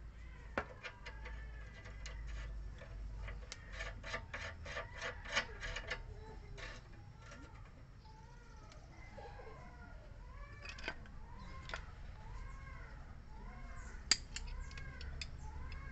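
Metal clicks of a wrench on the top nut of a new Ford EcoSport stabilizer link as it is tightened, a quick run of clicks in the first six seconds. After that a bird chirps over and over in the background.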